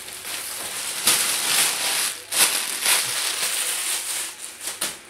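Plastic mailer bag crinkling and rustling as cardboard boxes are pulled out of it, with a few sharp knocks as the boxes are handled and set down on a table.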